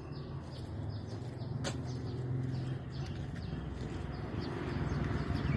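Small birds chirping here and there, over the low hum of a motor vehicle that grows steadily louder as it approaches; a single sharp click comes just under two seconds in.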